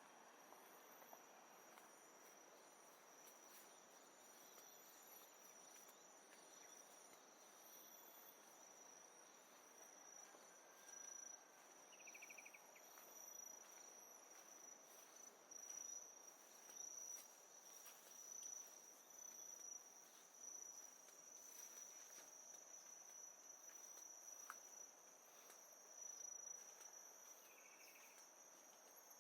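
Faint, steady high-pitched trilling of jungle insects, crickets or cicadas, over a soft even hiss, with a couple of short chirps.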